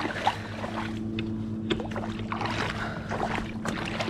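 River water rushing and splashing at the bank, with scattered small clicks and a steady low hum that grows fuller about a second in.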